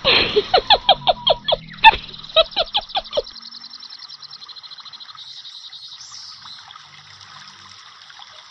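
Instant noodles and greens sizzling in a hot aluminium wok, a faint steady hiss through most of it. The first three seconds hold a quick run of short, sharp chirping clicks, about four a second, the loudest near two seconds in.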